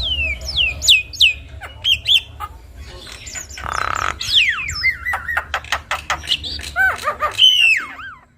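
Javan myna (jalak kebo) singing a varied, mimicking song. Quick falling whistles come first, then a harsh screech about four seconds in and a fast run of clicks, then more whistled notes. It cuts off abruptly near the end.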